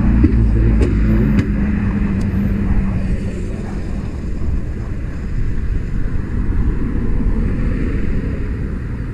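A motor running steadily with a low rumble. A steady hum sits in it for the first three seconds, and a few faint clicks come in the first couple of seconds.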